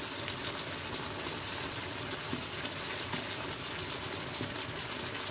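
Pot of tomato and chicken sauce simmering with a steady bubbling hiss, with a few faint taps from the wooden spoon stirring it.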